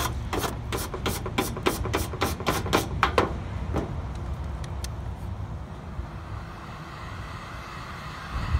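Stiff plastic brush scrubbing sun-baked protective film on a stainless steel sheet in quick back-and-forth strokes, about four a second, which stop about three seconds in. Then a Ryobi heat gun blows a steady hiss to soften the film.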